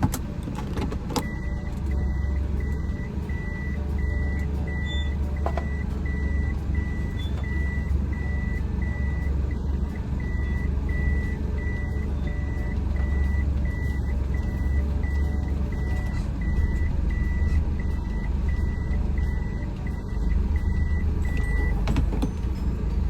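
A car's electronic warning beeper sounding a single high beep about twice a second for some twenty seconds, over the low rumble of a car engine.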